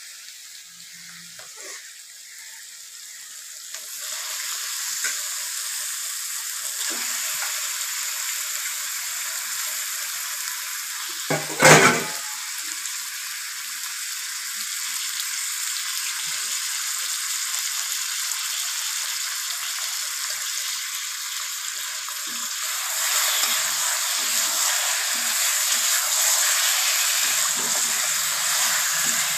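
Marinated chicken pieces sizzling in hot oil and masala in a kadai, the frying hiss setting in about four seconds in as the meat starts to brown for kosha. One sharp knock near the middle, and the sizzle grows louder near the end as the pieces are turned with a spatula.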